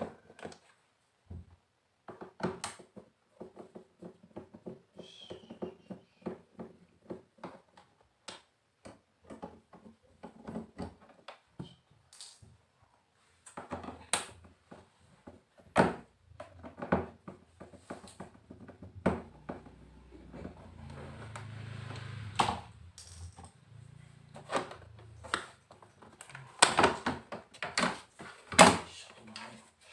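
A screwdriver backing screws out of the plastic back cover of a 32-inch Sony LED TV and the screws being handled, making a run of small irregular clicks and ticks. Near the end come louder sharp clicks as the back cover is pried loose from its clips.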